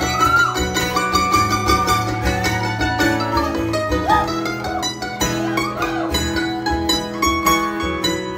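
Mandolin and acoustic guitar playing an instrumental passage of a folk song between sung verses, recorded live.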